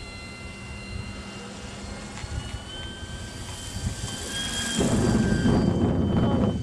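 Electric motor and propeller of a radio-controlled model gyrocopter whining in flight overhead, stepping up in pitch about two and a half seconds in as the throttle is opened. About five seconds in, a loud low rumble on the microphone takes over.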